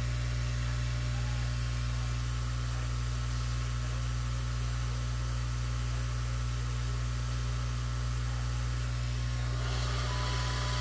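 Hot-air rework station blowing: a steady hiss of air over a low hum, the hiss getting brighter near the end.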